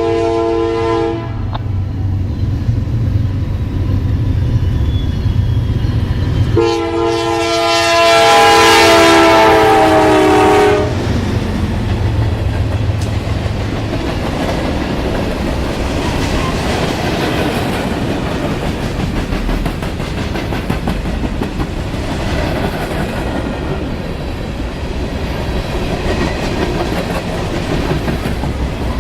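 Diesel locomotive air horn sounding a multi-note chord: a blast that cuts off about a second in, then a longer, louder one from about 7 to 11 s. The train then rolls past with its wheels clicking over the rail joints.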